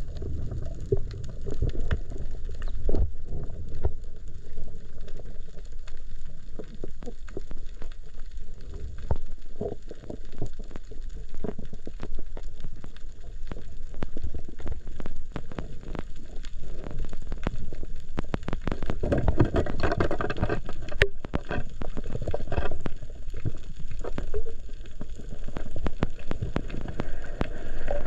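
Underwater coral-reef crackle from snapping shrimp, a dense scatter of tiny clicks, over a low rumble of water moving past the camera housing, with a louder rush of water about two-thirds of the way through.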